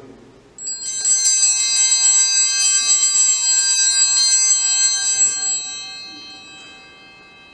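Altar bells rung at the elevation of the host: a cluster of small bells shaken, ringing loud and high for about five seconds, then left to ring out and fade.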